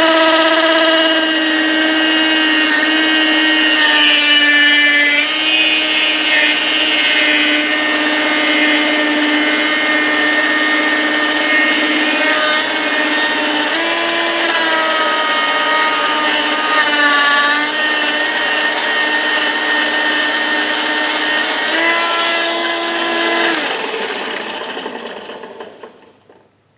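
Benchtop mini lathe running with a steady whine while polishing compound is worked onto a spinning titanium ring. The whine shifts in pitch a few times, then near the end the lathe is switched off and winds down.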